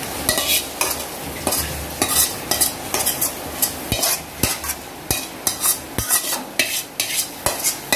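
A metal spoon scraping thick mutton masala out of a tilted metal kadai onto a pot of rice: a run of short rasping scrapes, about two a second, with a few dull knocks of spoon on pan.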